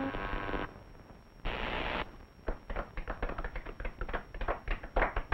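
Cartoon sound effects. A short buzzing electronic tone is followed by a brief burst of hiss like radio static, then a quick, irregular patter of clicks.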